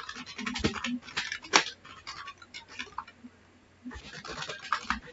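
Typing on a computer keyboard: quick runs of key clicks, a short pause, then another run of keystrokes near the end.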